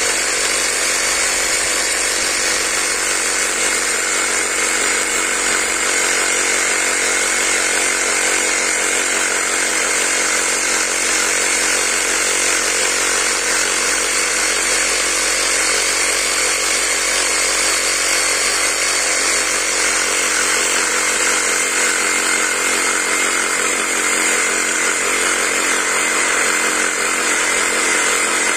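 Cordless electric saw running steadily, the motor's sound even and unbroken throughout.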